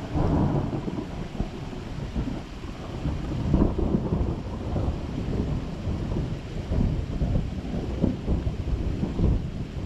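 Thunder rolling in a long low rumble that swells and fades several times.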